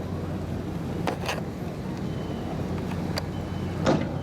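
Fireworks bursting over a steady low rumble: two sharp bangs close together about a second in, then two more near the end, the last the loudest.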